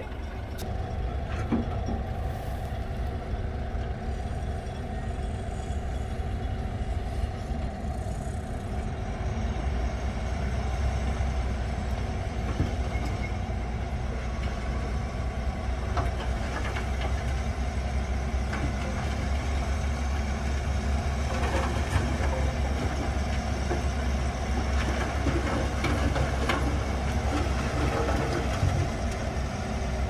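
Heavy diesel dump truck's engine running steadily, a low rumble that grows somewhat stronger partway through as the hydraulic hoist raises the loaded bed.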